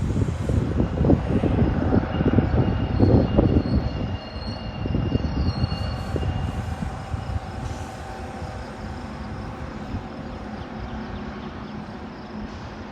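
A train rolling past, wheels rumbling and clattering on the rails, then dying down after about four seconds as it moves away, with a faint high whine lingering.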